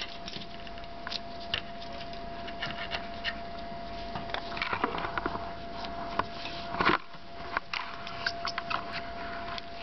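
Black-headed caique handling its toys: scattered clicks, taps and scratches of beak and feet on plastic toys and newspaper, with a louder clatter about seven seconds in.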